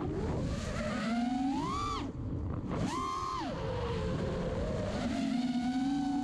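Five-inch FPV racing quadcopter's brushless motors and propellers whining in flight, the pitch swooping up and down with throttle. The pitch climbs to a peak a little under two seconds in, drops sharply, jumps up again near three seconds, falls, then rises slowly and drops once more near the end.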